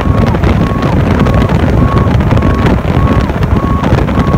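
Wind buffeting the microphone over the engine and road rumble of a fire truck driving at speed. A short, level beep repeats about one and a half times a second throughout.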